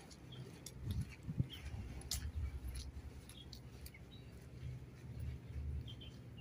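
Wind buffeting the phone's microphone in a low, uneven rumble, with scattered faint bird chirps and a few light clicks.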